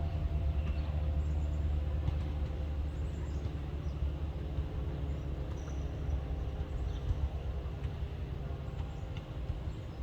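ACA P-50 tornado siren sounding a steady, multi-note tone, slowly fading, under a heavy low rumble of wind on the microphone.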